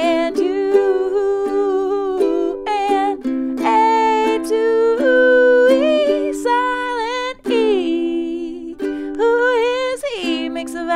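A woman singing over a strummed ukulele, holding long sung notes on the vowel names.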